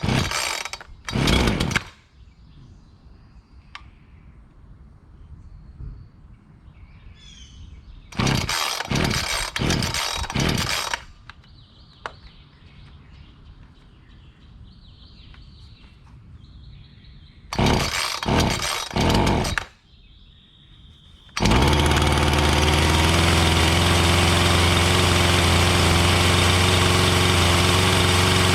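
Black Max 16-inch two-stroke gas chainsaw being pull-started cold on full choke: three bouts of recoil-starter pulls with pauses between them, then about three-quarters of the way through the engine catches and runs steadily at idle.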